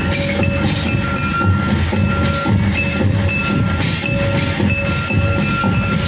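Santal folk drums played by hand, beating a fast, even dance rhythm of several strokes a second. A high held tone breaks in and out over the drumming.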